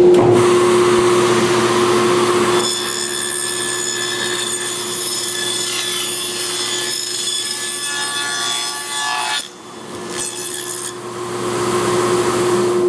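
Table saw fitted with a dado blade cutting pine boards, with a loud cutting rush in the first couple of seconds, then the spinning blade's steady whine under lighter rubbing, a brief lull near ten seconds, and cutting again near the end. A steady hum from the dust collection runs underneath.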